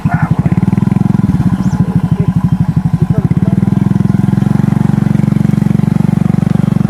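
Small motorcycle engine running hard under load as the bike is ridden and pushed up a slippery mud slope, its beat quickening about three and a half seconds in as the revs rise.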